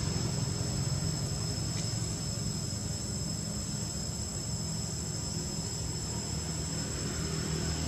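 Steady background noise: a low, even rumble with two thin, steady high-pitched tones held above it.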